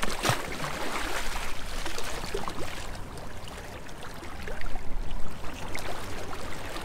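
Water splashing and sloshing against a boat hull as a small hooked swordfish thrashes at the surface alongside, with a sharp splash just at the start and another burst of splashing about five seconds in.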